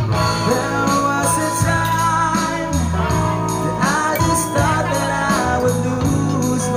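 Live band playing a song: a singer over acoustic guitar, electric guitar and bass guitar, with a steady beat.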